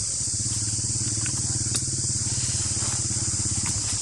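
An engine running steadily, its low, fast, even pulsing under a steady high hiss, with a faint click or two.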